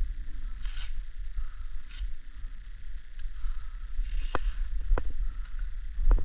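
Low rumble of wind and handling on a body-worn camera's microphone, with a few separate sharp clicks, the clearest about four and five seconds in and another near the end.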